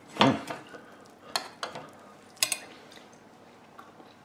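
A brief bit of voice right at the start, then a metal serving spoon scraping and clinking against a metal cake pan as a slice of meatloaf is lifted out, with a few sharp clinks, the loudest about two and a half seconds in.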